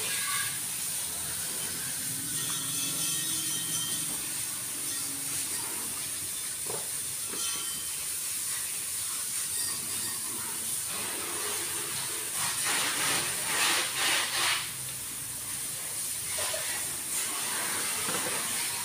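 A steady hiss, with a wash mitt rubbing over a foam-covered van body and a few louder stretches of rubbing and water noise about two-thirds of the way in.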